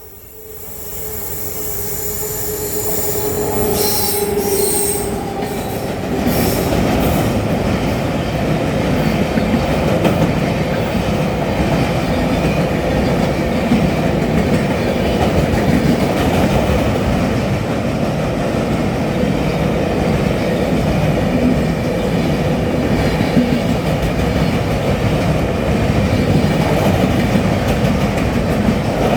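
Express passenger train hauled by a WAP7 electric locomotive passing close by. The rolling noise builds over the first few seconds as it arrives, then holds loud and steady as the coaches go past. There is a brief high-pitched wheel squeal about four seconds in.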